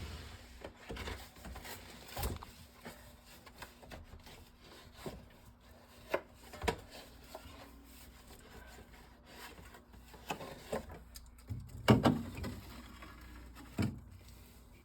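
Drink containers and their packaging being handled and set into a refrigerator: rubbing and rustling with scattered knocks and clatter. The loudest cluster of knocks comes about twelve seconds in.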